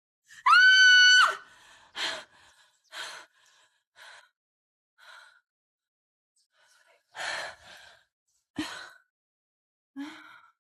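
A woman's short, high-pitched cry that rises and holds for under a second. It is followed by a series of breathy gasps and sighs, roughly one a second, with a pause of about two seconds in the middle.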